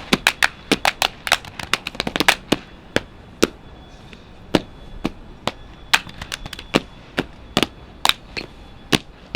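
Body percussion: sharp hand-struck hits such as claps and slaps played in rhythm, a fast dense run for the first two and a half seconds, then single hits spaced about half a second to a second apart.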